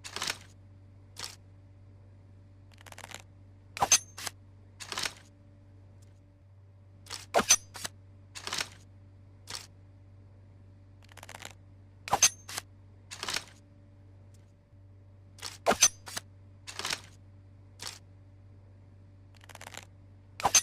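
Tanto dagger sound effect: a sharp metallic click with a brief high ring, followed by three or four quick swishing strokes. The sequence repeats about every four seconds.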